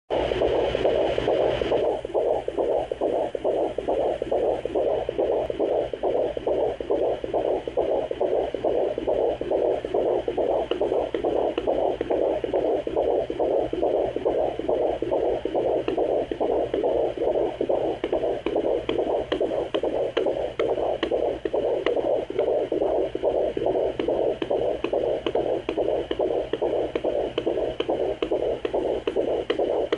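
Fetal heartbeat at 17 weeks picked up by a handheld pocket fetal Doppler and played through its speaker: a fast, steady, even pulsing.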